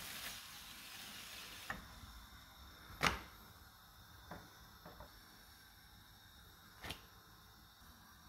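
Crêpe cooking in a non-stick pan: a light sizzle for the first second or two, then a handful of separate knocks and clicks of a spatula against the pan and plate, the loudest about three seconds in.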